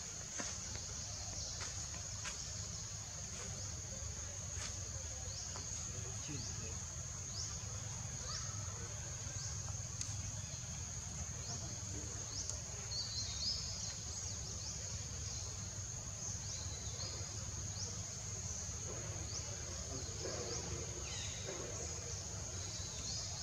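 Steady high-pitched insect drone of outdoor ambience, with short rising chirps about once a second, over a steady low background rumble.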